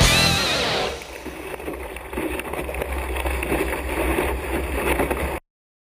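Rock guitar music fades out in the first second, leaving water rushing and splashing past a Hobie 16 catamaran's hull, with wind buffeting the hull-mounted camera's microphone as a steady low rumble. It all stops abruptly near the end.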